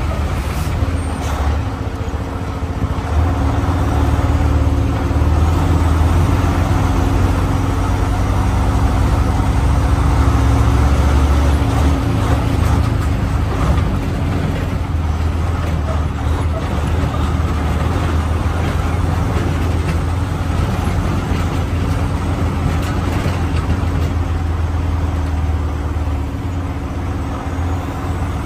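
Log truck's diesel engine running steadily with a low drone as the truck drives slowly.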